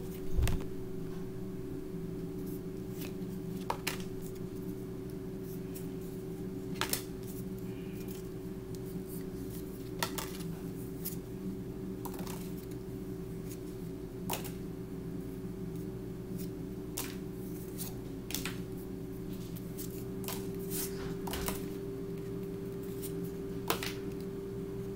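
Pokémon trading cards being handled and flipped through by hand, giving short sharp card snaps and clicks every second or two over a steady low hum.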